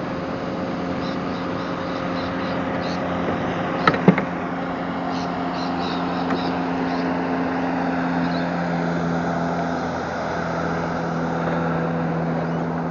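Motorboat engine running with a steady hum, over a wash of noise, with a couple of sharp knocks about four seconds in.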